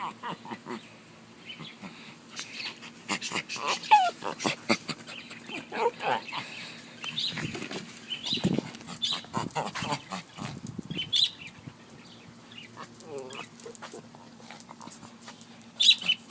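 A dog making brief vocal sounds among many short, sharp clicks and smacks.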